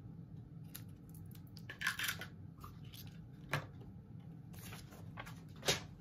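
Scissors snipping through a piece of gingham ribbon, then light handling and rustling of ribbon and paper, with two sharp taps as things are set down, the louder one near the end.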